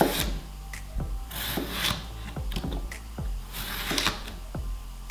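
Chef's knife drawn lengthwise through a fresh cucumber on a plastic cutting board: a scraping rasp as the blade cuts through, with short knocks of the knife on the board.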